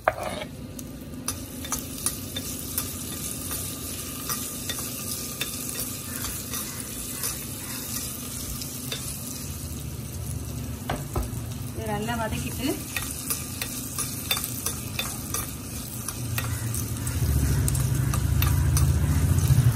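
Green chillies frying in hot oil in a small pan, crackling and spattering, with a spoon stirring and scraping against the pan. A low steady hum grows louder near the end.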